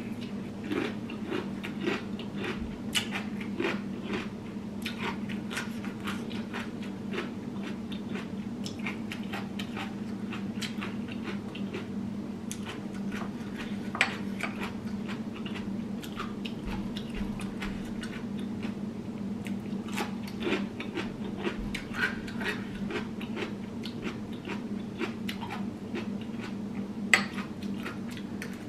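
A person chewing and biting boiled vegetables close to the microphone: a run of small wet clicks and crunches. A few sharper clicks stand out, the loudest about halfway through and near the end, over a steady low hum.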